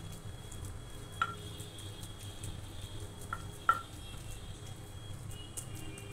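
Wooden masher tamping a crumbly flour-and-dry-fruit mixture into a glass baking dish: soft pressing and scraping over a low steady hum, with three sharp ringing clinks as the tool knocks the glass, once about a second in and twice in quick succession between three and four seconds.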